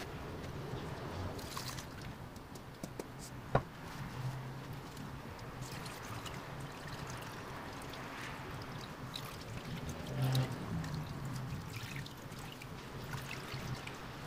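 Rice juice trickling and dripping into a bowl as a cloth bag of cooked, malted rice mash is squeezed by hand. One sharp click about three and a half seconds in.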